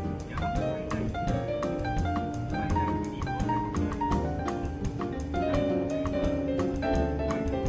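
Background jazz music: a piano melody over a steady beat.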